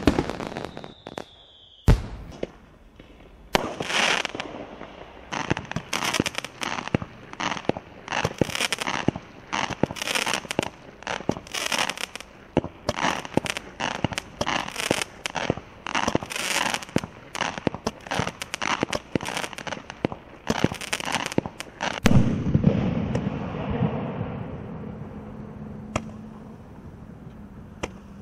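Consumer fireworks: a single sharp bang, then a long run of crackling comets firing one after another, each shot trailing a dense crackle. Near the end a deeper thud with a rumbling tail that slowly fades.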